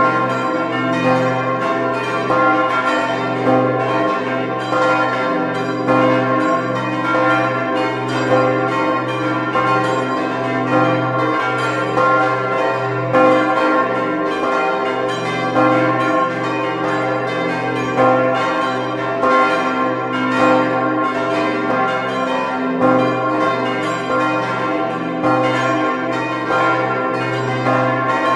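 Several church bells ringing together in a full peal. Their strikes overlap in a continuous, uneven rhythm, and the tones ring on between strokes.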